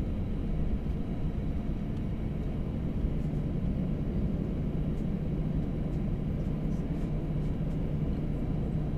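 Airbus A321-211's CFM56 turbofan engines running steadily at low power on the ground, a low, even drone heard from inside the passenger cabin.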